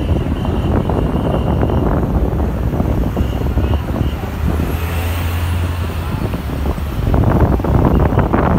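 Busy city-street traffic: cars and a bus driving past with a steady low engine rumble, swelling louder near the end as a large vehicle passes close.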